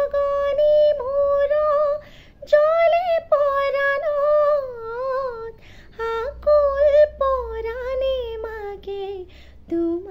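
A woman singing an Assamese song solo with no accompaniment. She draws out long held notes with wavering ornaments in three or four phrases, with brief pauses between them.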